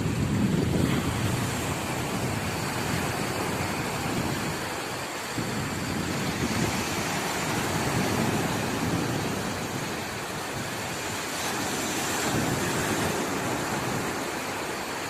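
Mediterranean Sea surf washing in, swelling and easing every few seconds, with wind on the microphone.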